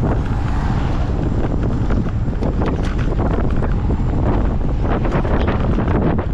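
Heavy wind buffeting on the microphone, a steady loud rumble with many small clicks and knocks scattered through it.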